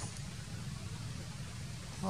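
Steady low rumble with a hiss over it, outdoor background noise with no clear single source; a brief faint tick right at the start.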